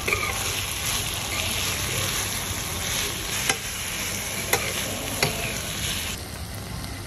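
Chicken and vegetables sizzling in a stainless steel frying pan as a metal spatula stirs them, with a few sharp clinks of metal on the pan.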